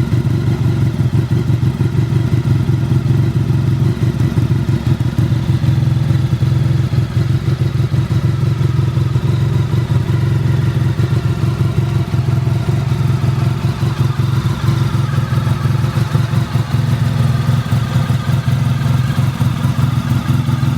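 Honda VFR1200F's V4 engine idling steadily through an open aftermarket DAM exhaust pipe.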